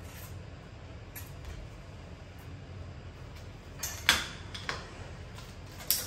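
A few sharp clicks and knocks from a bicycle's front fork and handlebar being handled, the loudest about four seconds in, over a low steady hum.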